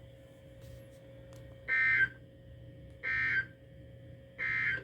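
Three short digital data bursts from a NOAA Weather Radio broadcast, a little over a second apart, over a faint steady hum: the SAME code's end-of-message signal, which closes the preceding statement.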